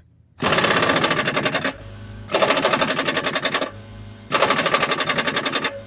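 Air ratchet running in three bursts of about a second and a half each, a fast hammering rattle, as it tightens the nut holding a mower blade onto its spindle.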